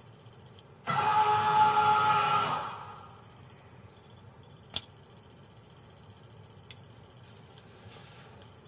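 Motion-activated paper towel dispenser's motor whirring for about a second and a half as it feeds out a sheet, ringing with echo off the tiled walls. A single sharp click follows a few seconds later.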